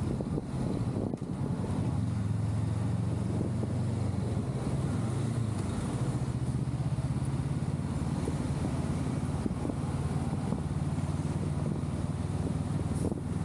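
Honda Rebel 500's parallel-twin engine running steadily while riding in slow traffic. Its note shifts a little higher about halfway through.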